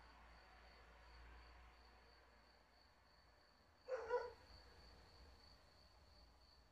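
Near silence: a faint, steady high-pitched tone with a slight pulse, and one short pitched sound about four seconds in.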